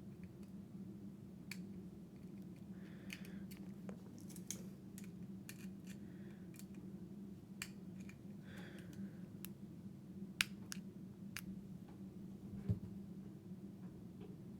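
Scattered small sharp clicks and short scrapes as a tool pries at the brass limiter ring on a Zippo dual-torch butane insert, over a steady low hum.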